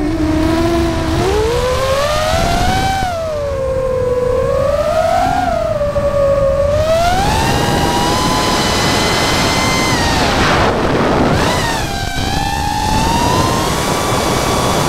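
DJI FPV drone's motors and propellers whining, picked up close by a camera mounted on the drone. The pitch rises and falls with the throttle, and a rush of air noise builds from about halfway through.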